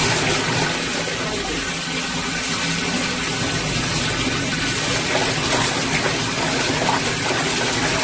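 Mini portable washing machine agitating clothes in water: a steady rush of churning water in the open tub over a faint low motor hum.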